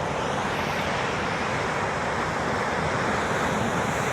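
Heavy sea surf breaking, a steady even rush of waves, with wind buffeting the microphone.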